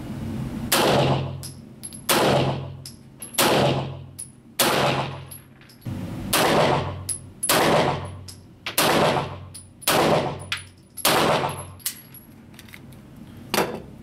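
SPS 9mm 2011-pattern pistol fired at a steady pace: about nine shots a bit over a second apart, each echoing in an indoor range. A fainter sharp sound follows near the end.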